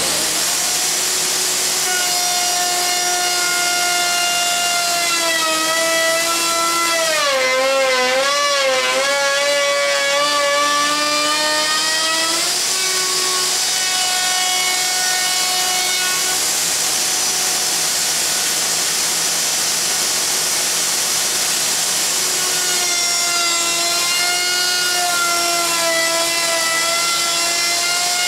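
Festool OF2200 plunge router running flat out while its bit cuts a wide, deep groove in wood. The motor's whine sags and wavers as the bit loads up, from about five to twelve seconds in and again from about twenty-three seconds on. Underneath runs the steady rush of the dust collector and shop vacuum.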